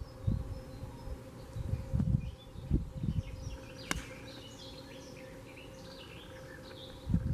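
Golf iron striking the ball off the tee: one sharp click about four seconds in. Short chirps and low rumbling gusts of wind on the microphone run underneath.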